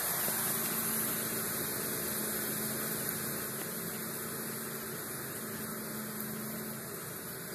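Steady hiss with a faint low hum running under it, with no distinct knocks or clicks.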